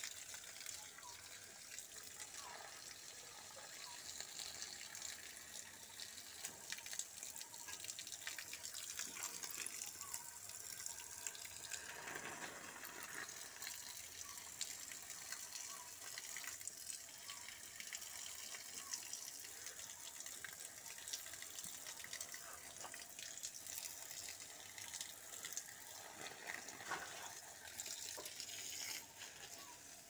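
Dirty backwash water pouring steadily from a sand filter's discharge hose and splashing onto the ground, as a long-unwashed filter is flushed out.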